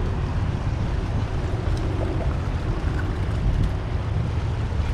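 Steady low wind rumble buffeting the microphone, with a few faint clicks from the pliers working a hook out of a small catfish.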